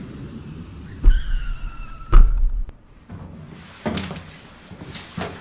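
A sudden deep rumble with a high whistling tone, broken by a loud heavy thud about two seconds in, then cut off. After it come a few lighter knocks and clicks of a door being opened.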